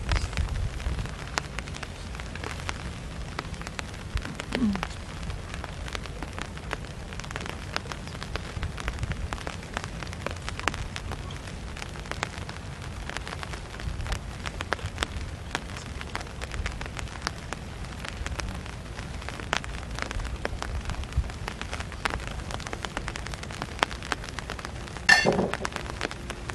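Rain pattering steadily, with many small sharp drop clicks over a low rumble. A brief pitched sound about four seconds in and a short voice-like sound near the end.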